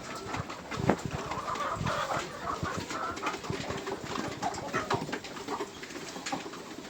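Poultry clucking and calling, with frequent light knocks and taps.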